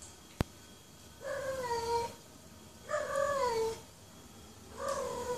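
A cat meowing three times, each meow lasting about a second and sliding down in pitch toward its end. A single sharp click comes shortly before the first meow.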